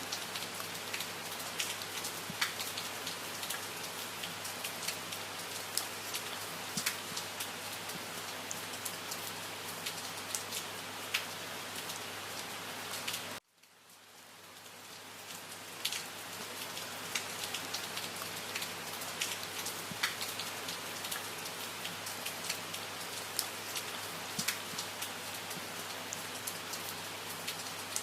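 Steady rain falling, with many separate drop ticks over the even hiss. About halfway through it cuts out suddenly, then fades back in over a couple of seconds.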